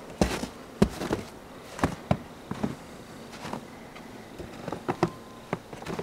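Footsteps crunching in fresh snow, short irregular steps about two a second.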